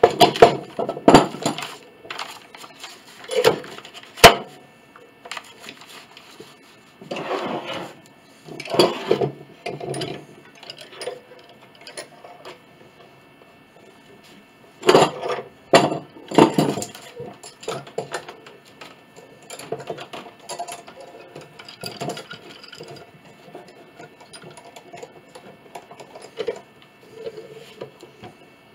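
C-clamps being handled and their screws turned down over wooden blocks on a glue-up: scattered knocks, scrapes and clinks of metal on wood in irregular bunches, with one sharp click about four seconds in.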